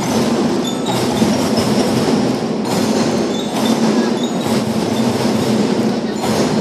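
Children's marching drum band playing: snare, tenor and bass drums in continuous, dense drumming.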